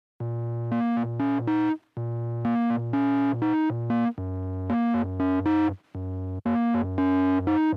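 Synthesizer music: a short keyboard riff of a few notes stepping upward over a held bass note, repeated four times with brief gaps between phrases, the bass dropping lower for the second half.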